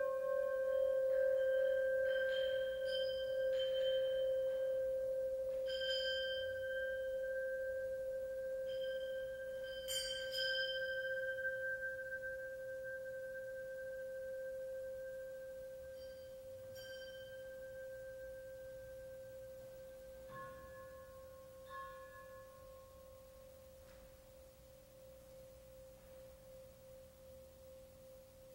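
Upright metal rods ringing with one steady, sustained tone that slowly fades away. Light strikes now and then add brief higher chiming tones, the last two a little after twenty seconds.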